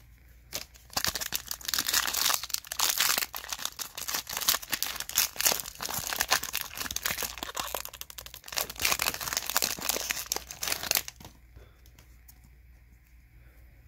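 Wrapper of a baseball trading-card pack crinkling and tearing as the pack is opened: a dense run of crackles lasting about ten seconds that stops near the end.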